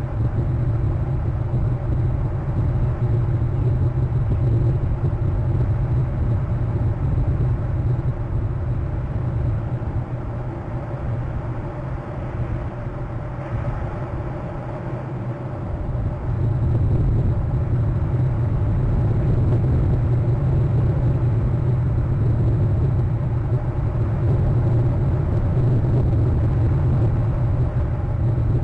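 Steady low rumble that eases for a few seconds about halfway through, then comes back as strong.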